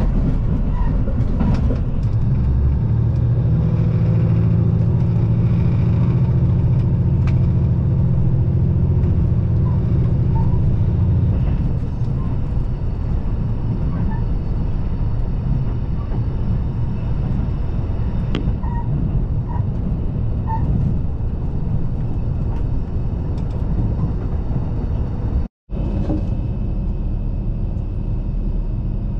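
KiHa 85 series diesel express railcar in motion, heard on board: the Cummins engines drone steadily, then the drone falls away about twelve seconds in, leaving the rumble of wheels on rail. The sound cuts out for a moment near the end.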